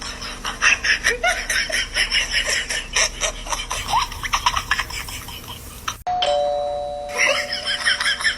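Doorbell rung over and over in rapid succession, several chimes a second. There is a sudden break about six seconds in, followed by a steady two-note tone, and then the rapid ringing starts again.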